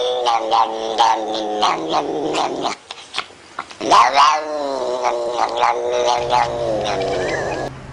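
Cat yowling in long, wavering calls: the first breaks off just under three seconds in, and a second begins about a second later and holds almost to the end.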